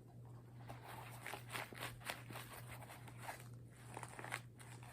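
Faint handling noise: scattered small clicks and rubbing as a BB pistol and its nylon holster are handled, over a steady low electrical hum.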